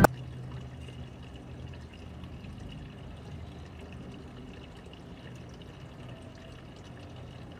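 Small tiered garden fountain of stacked pots, water trickling and splashing steadily from one pot down into the next.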